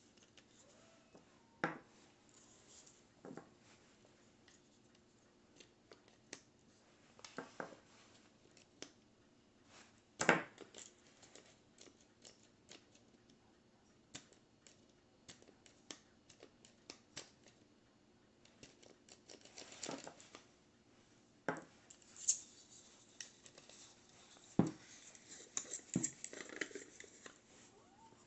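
Scattered small clicks and short scraping sounds, irregular and spaced apart, becoming more frequent in the last third, with a longer scrape about twenty seconds in.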